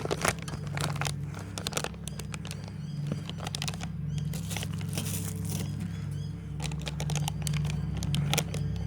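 Clicks, knocks and rattles of parts being handled and fitted back onto a lawnmower, over a steady low hum.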